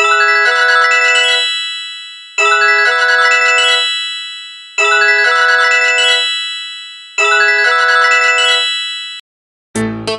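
A Sony Ericsson T610 polyphonic ringtone: a short bell-like run of rising notes, played four times about every two and a half seconds, each run ringing out and fading. Near the end a different ringtone with a heavy bass line starts.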